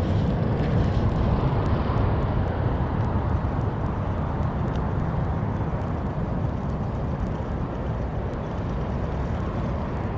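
Steady low, noisy outdoor rumble, with faint regular ticking about three times a second.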